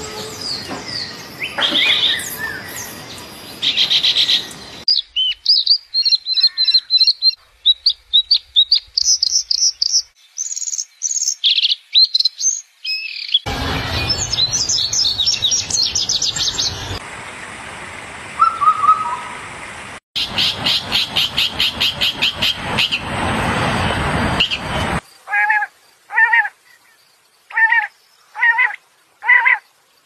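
Several different birds singing and calling in turn, changing abruptly every few seconds: varied chirping and warbling song, then a rapid run of repeated notes, and from about 25 s on a short call repeated over and over, roughly once every 0.7 s, from a common quail.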